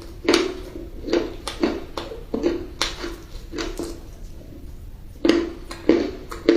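Close-miked crunchy chewing: sharp crunches two or three a second, with a short lull about four seconds in.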